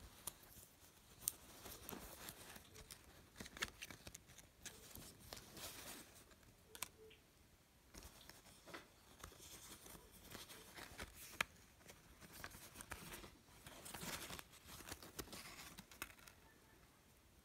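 Cardboard hang tags on a denim shirt being handled and flipped close to the microphone: irregular paper rustling and rubbing on the cloth, with sharp clicks and taps.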